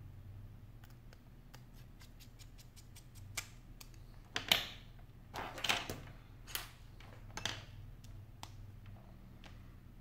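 Faint small clicks as an iPhone 5 and a precision screwdriver are handled. About four seconds in come a few louder scuffs and knocks as the tools and phone are moved and set down on a rubber work mat.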